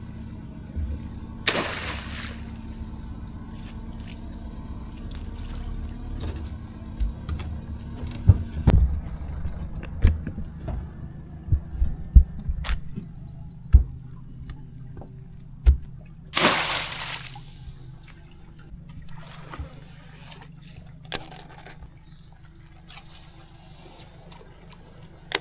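A small boat on water: a steady low hum with water sounds and scattered sharp knocks. About nine seconds in it changes abruptly to a quieter low rumble with more knocks. There are two brief rushing whooshes, one near the start and one about two-thirds of the way through.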